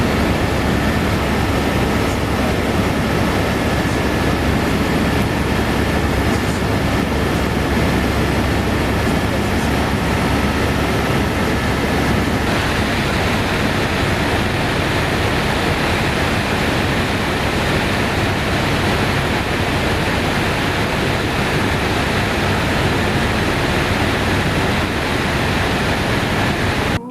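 Helicopter cabin noise in flight: a loud, steady rush of rotor and turbine noise with a low throb underneath. A faint high whine runs along with it and drops out about halfway through.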